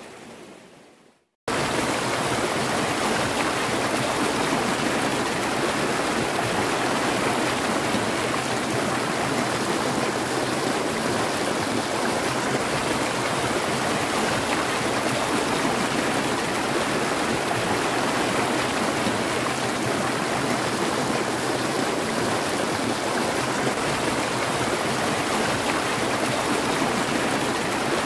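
Shallow rocky stream rushing steadily over stones. It cuts in abruptly about a second and a half in, after a brief fade to silence.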